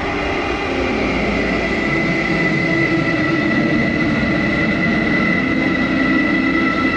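Soma Labs Lyra-8 analog drone synthesizer playing a dense, noisy drone through heavy reverb, with sustained tones held high and low. A lower cluster of tones comes in about half a second in and the drone grows a little louder over the first couple of seconds.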